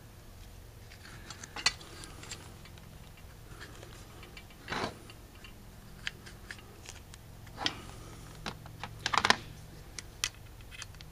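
Scattered small clicks and taps of hard parts being handled: an Autolite 4100 four-barrel carburetor body and its secondary diaphragm housing turned over in the hands and knocked lightly against each other and the bench. There is a quick cluster of sharper clicks a little before the end.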